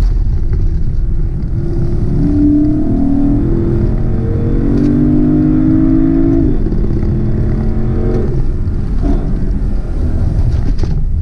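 Lexus LC500's 5.0-litre naturally aspirated V8 heard from inside the car under acceleration, its note rising slowly for several seconds, dropping suddenly about six and a half seconds in, then holding steady before easing off, over a constant rumble of road and wind noise.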